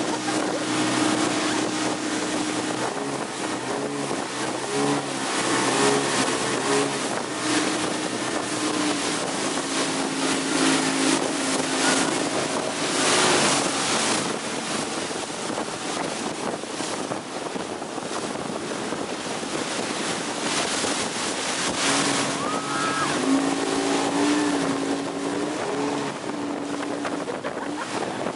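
Yamaha V6 150 outboard motor running at speed while towing, its steady drone mixed with the loud rush of the wake and spray and wind buffeting the microphone.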